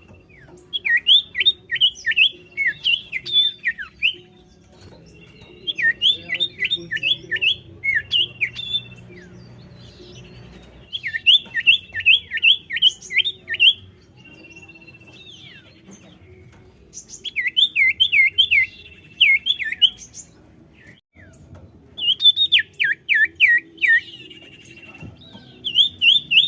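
Common iora (cipoh) singing in phrases of six to eight rapid, sharply falling whistled notes, repeated about every five seconds. A thin held whistle sometimes comes between the phrases.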